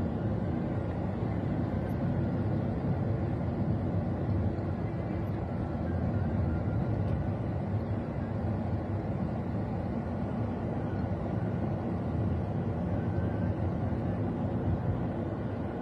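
Steady low rumble of a car running in traffic, heard from inside its cabin through a phone's microphone.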